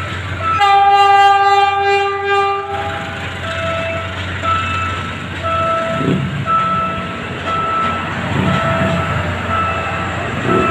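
Train horn sounding one steady blast of about two seconds, over the low rumble of the train. A short warning tone repeats about once a second throughout.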